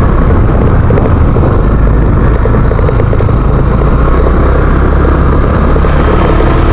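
Honda Click 125i scooter's single-cylinder 125 cc engine running steadily while it is ridden, with wind and road noise on the microphone.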